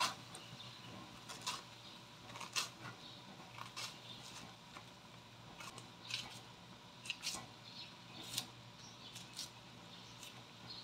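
Scissors snipping slices off a banana blossom into a wok of boiling water: short sharp snips at irregular spacing, roughly one a second.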